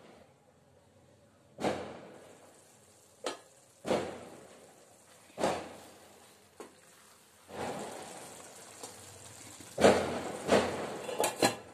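Kitchen utensil knocks: a stainless-steel lid clanking as it comes off a steel kadai, then a wooden spatula stirring thick tomato curry and knocking against the pan, with a quick cluster of knocks near the end.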